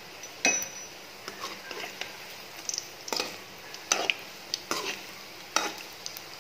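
Snake gourd bondas deep-frying in well-heated oil in a metal kadai: a steady sizzle, with a metal spoon clinking and scraping against the pan again and again as the fritters are moved.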